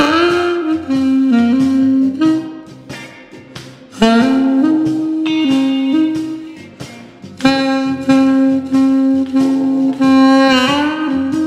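Saxmonica playing improvised blues phrases of held, reedy notes, in three runs starting at the outset, about four seconds in and about seven and a half seconds in, with a bend in pitch near the end. It plays over a blues backing track with guitar and a steady beat.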